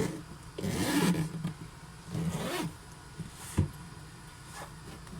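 A drone carrying case being closed up: scraping and rubbing handling noises in a few bursts, with a single sharp knock about three and a half seconds in.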